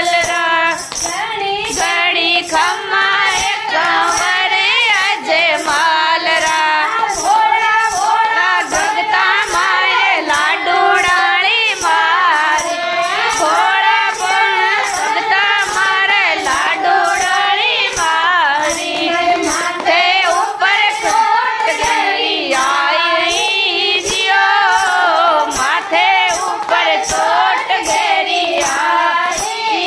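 Women singing a Marwari devotional bhajan to Baba Ramdev without instruments, kept in time by steady rhythmic hand claps.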